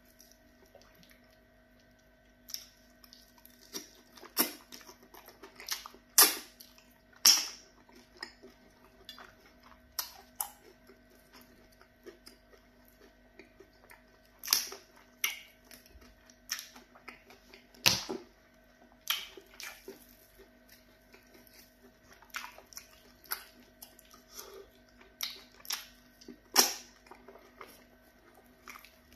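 Close-up eating sounds as pounded yam fufu is eaten by hand with okra soup: irregular wet smacks, squelches and clicks of fingers in the slimy soup and of the mouth chewing, with quiet gaps between. A faint steady hum lies underneath.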